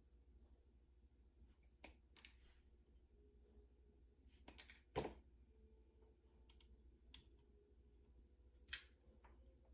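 Near silence over a faint low hum, broken by a handful of small clicks and light handling noises as hand tools and the open preamp chassis are handled on a rubber bench mat. The loudest click comes about five seconds in, with another short scrape near the end.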